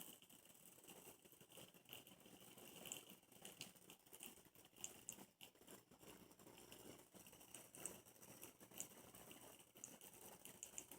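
Near silence, with a faint, irregular patter of small ticks: water spattering from an ultrasonic mist maker running submerged in a small bowl.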